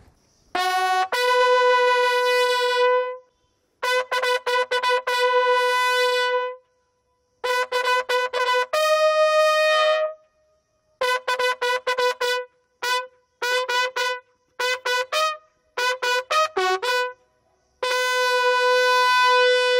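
Military bugle call. It opens with three phrases of long held notes, the third changing pitch near its end. A run of short, quickly tongued notes follows, and the call closes on a long held note. Brief pauses separate the phrases.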